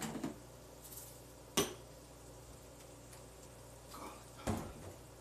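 Kitchen items knocking and clattering as they are handled in a wall cupboard: a few separate sharp knocks, the sharpest about a second and a half in and another near the end.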